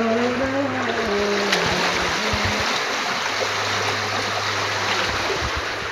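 Steady flowing water of a rain-filled stream running past a fishing net. A wavering low tone sounds over it for roughly the first two seconds.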